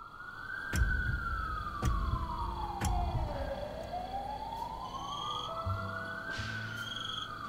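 Emergency vehicle siren in a slow wail, rising and falling twice. Three sharp thumps about a second apart come in the first three seconds, and short high tones and low notes come in during the second half.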